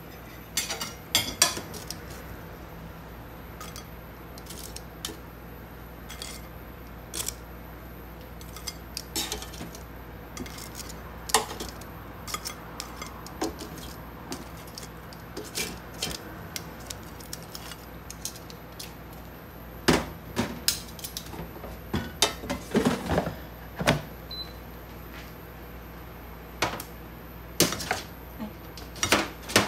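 Dishes and utensils clinking and knocking on and off during kitchen work, with a busier run of clatter about two-thirds of the way through, over a steady low hum.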